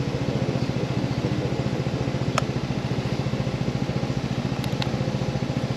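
Motorcycle engine idling, an even, rapid low throb, with a couple of faint light clicks.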